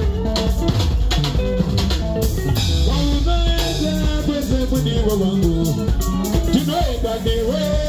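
Live Zimbabwean sungura band playing electric bass, electric guitars and drum kit in a driving dance beat, with a man singing at the microphone.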